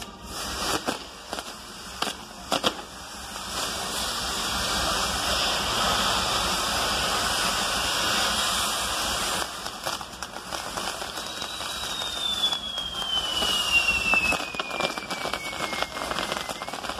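Fireworks on a castillo, a fireworks tower, going off: a few sharp pops, then several seconds of steady hissing as sparks spray, then crackling with bangs. Over the last five seconds a whistle falls steadily in pitch.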